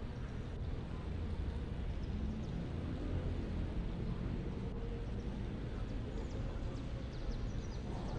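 Steady low outdoor rumble with no distinct event: open-air background noise.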